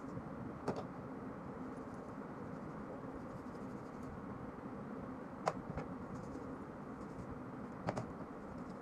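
A few sharp clicks of small hard parts and a bore brush being handled and set down on a plastic tabletop while the stripped pistol is cleaned: one about a second in, two close together past the middle, and one near the end, over steady background noise.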